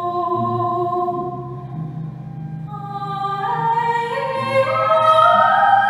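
A woman's voice singing long held notes over a bowed cello, in a classical, operatic style. Over the second half the voice climbs in steps and grows louder.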